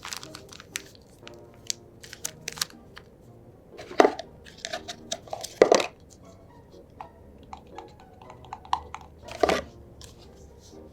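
Packaging of a DIY kit being handled and opened: crinkles, rustles and small clicks, with three louder crinkling bursts about four, five and a half, and nine and a half seconds in.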